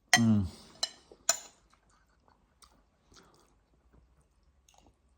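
Eating at a table: a brief voice with falling pitch at the start, then two sharp clicks of cutlery on a plate about a second in, followed by faint chewing and small clinks.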